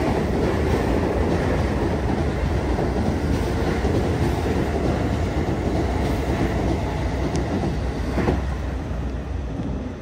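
Electric commuter train passing directly below, a steady loud rumble of wheels on rails with one sharper knock about eight seconds in, easing off near the end as the train clears.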